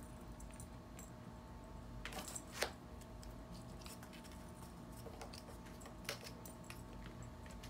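A cat at play knocking a cardboard tube about on carpet: a brief rustle about two seconds in that ends in a sharp tap, and another light tap about six seconds in. A faint steady hum runs underneath.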